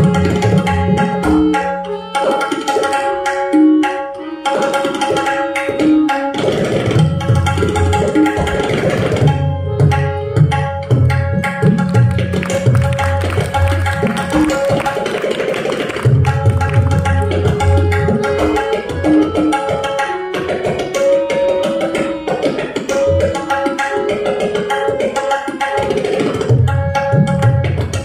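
Tabla solo: fast strokes on the small drum and deep bass strokes from the large drum, the bass dropping out and returning in phrases, over a harmonium playing a steady repeating lehra melody.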